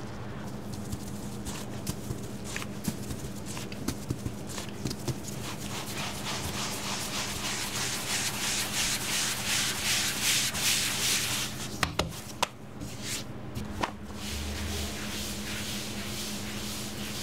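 A pizza being prepared by hand on the counter: a run of quick, rhythmic rubbing strokes that grow loudest in the middle, then a few sharp knocks, over a steady low hum.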